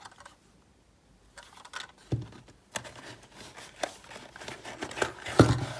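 Cardboard packaging handled and opened by hand: after a moment of quiet, scraping and rustling of card with several sharp knocks, the loudest near the end.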